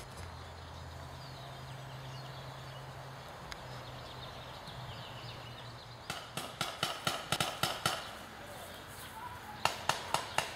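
Paintball markers firing rapid strings of sharp shots, about five or six a second, from about six seconds in. The shots pause for a second or so, then start again near the end.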